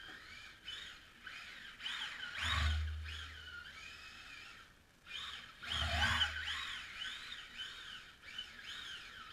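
Electric motor of a Tamiya TT-01 radio-controlled drift car whining, rising and falling in pitch over and over with quick throttle blips. It gets louder twice, about two and a half and six seconds in.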